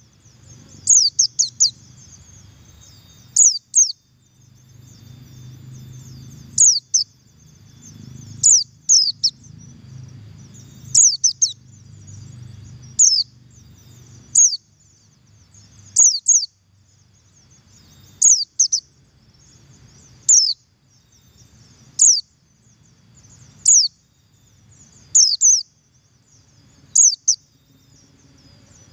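Buxtoni-type white-eye (pleci) giving its double call: sharp, high notes slurred downward, mostly in pairs or threes, repeated about every two seconds over a faint steady high twittering. It is the call used as a lure to set other white-eyes singing.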